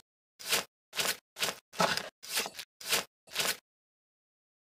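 Knife cutting through the crisp, bubbled crackling of roast pork belly: about seven short, sharp crunches, roughly two a second, that stop near the end.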